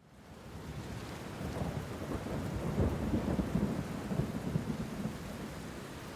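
Steady rain with a low rolling rumble of thunder that swells about a second and a half in, is loudest around three seconds, and eases back to the rain near the end.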